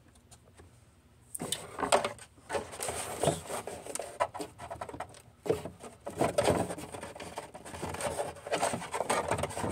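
Handling noise close to the phone's microphone: a cloth-gloved hand and bare arm brushing, rubbing and knocking, irregular and busy, starting after a short quiet moment about a second and a half in.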